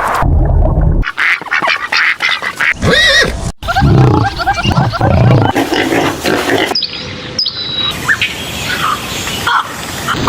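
Several different animal and bird calls in quick succession, cut together from separate recordings: squawking and low calls alongside a whistled call.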